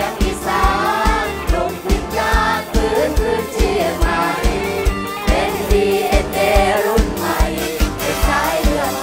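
Several singers of a Thai mor lam troupe singing into microphones over live band music with a steady, regular drum beat.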